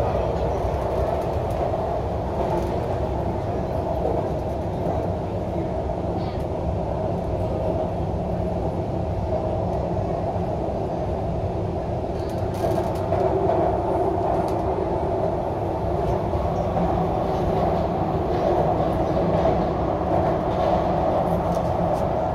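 MTR Q-Train metro car running, heard from inside the passenger cabin: a steady running noise that gets slightly louder about halfway through.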